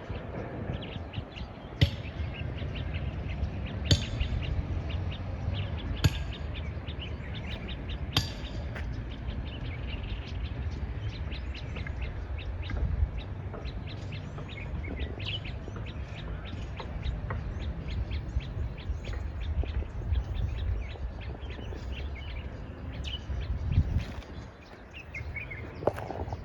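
Birds chirping, with wind rumbling on the microphone. Sharp knocks come about every two seconds for the first eight seconds or so.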